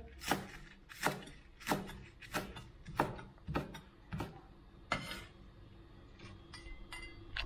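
Cleaver chopping scallion greens on a wooden cutting board: sharp knocks of the blade on the board, a little more than one a second, thinning to fainter taps after about five seconds.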